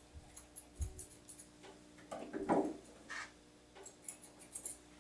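Curved grooming shears snipping the hair on a dog's paw: quick, light snips in two runs, the first in the opening second and a half and the second near the end. A brief louder sound comes about halfway through.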